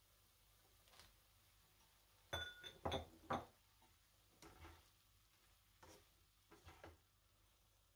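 Light clinks and knocks of a slotted spatula and kitchenware against a wok during stir-frying. A quick run of ringing clinks about two and a half seconds in is the loudest, followed by a few softer taps.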